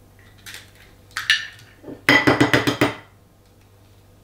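Eggs being cracked into a bowl: a few separate clinks against the bowl, then a quick run of about eight rapid clinks a little after two seconds in.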